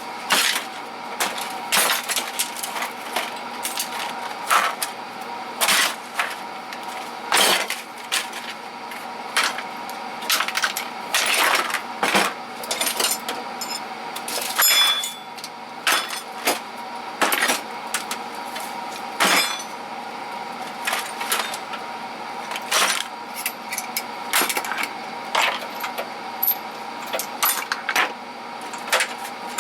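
Metal hand tools clinking and clattering as they are picked up and set down, in irregular knocks a second or two apart, over a steady background hum.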